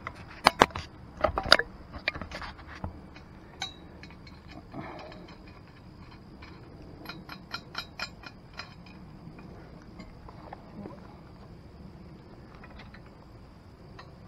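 Steel parts of a receiver-hitch truck crane being handled: a few sharp metal knocks in the first two seconds, then a run of quick light clicks and clinks a few seconds later as a bolt is fitted on the boom, where a steel hook chain hangs.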